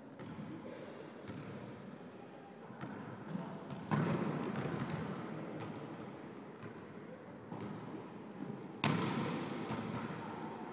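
Volleyballs being struck and bouncing, ringing out in a large gymnasium: two loud sharp smacks, about four seconds and nine seconds in, each followed by a long echo, with several fainter ball knocks in between.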